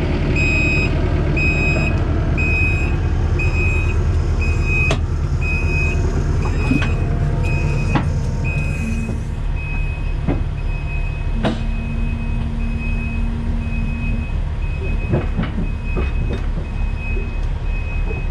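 Diesel earthmoving machine running under load with its backup alarm beeping about once a second, the beeps running together into a steadier tone about halfway through. The engine eases off partway through, and several sharp metal clanks come in the second half.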